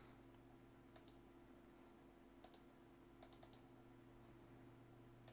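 Near silence: a low steady hum with a few faint computer mouse clicks, including a quick cluster a little past the middle.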